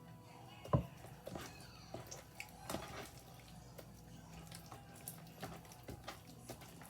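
Wet homemade slime with water added, squishing and clicking as it is worked by hand: a run of small irregular wet clicks, with one louder click about a second in.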